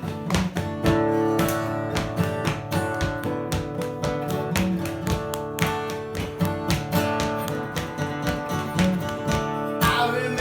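Acoustic guitar playing a steady strummed and picked chord pattern.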